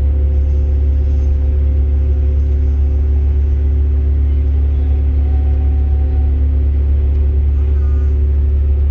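Jeep cruising at steady speed on a paved road, heard from inside the cab: a loud, even low drone of engine and road noise that holds its pitch.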